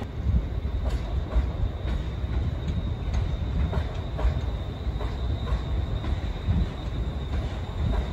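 Passenger train rolling slowly through station pointwork: a continuous low rumble with irregular clicks of wheels crossing rail joints and points, and a thin steady high whine.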